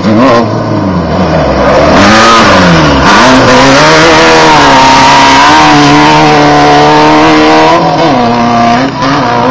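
Class 1600 off-road race buggy's air-cooled VW engine running hard, loud throughout. The revs dip and climb several times in the first few seconds, then hold high and fairly steady, with a brief dip near the end.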